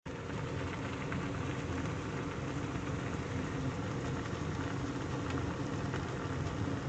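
Water boiling in a pot on a stove: a steady bubbling rumble with small pops and crackles throughout.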